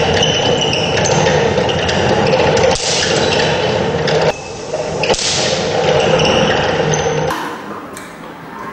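Wimshurst machine's hand-cranked disks spinning with a loud, steady whir, broken by two sharp cracks about three and five seconds in. The whir falls away about seven seconds in as the disks slow.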